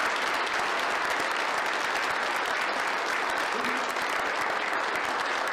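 Applause: a roomful of people clapping steadily.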